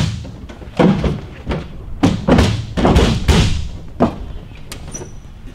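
A series of dull thumps and knocks, about six over the first four seconds, from a carbon-fibre engine cowl being shifted and pressed into place on the aircraft's nose.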